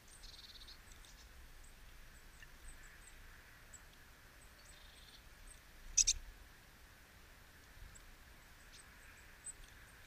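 Small garden birds calling: scattered high, thin chirps and two short trills, over faint outdoor ambience. A sharp click about six seconds in as a bird lands at the seed feeder.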